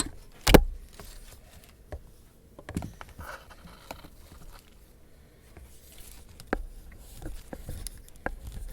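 Handling noises on a work surface: scattered light clicks, knocks and taps, with one sharp click about half a second in.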